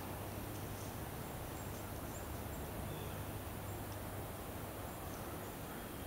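Outdoor woodland ambience: a steady low hum and hiss, with a few faint, short, high chirps scattered through it.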